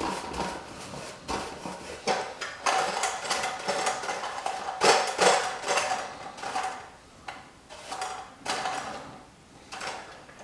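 Stiff paintbrush scrubbing over the painted sheet-metal body of a Lionel prewar standard gauge boxcar, a series of irregular brisk swishing strokes, working liquid wax into the paint.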